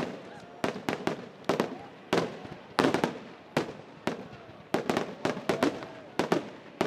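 Aerial firework shells bursting overhead in a steady barrage, several sharp bangs a second, each trailing a short echo.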